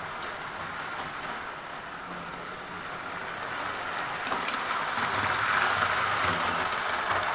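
Model train running on the layout's track: a steady whirr of its small electric motor and wheels that grows louder about five to six seconds in as it passes close by, with a few faint clicks.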